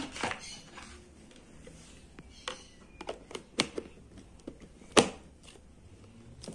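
A plastic container's snap-on lid being fitted and pressed shut by hand: a series of sharp plastic clicks and knocks, the loudest right at the start and about five seconds in.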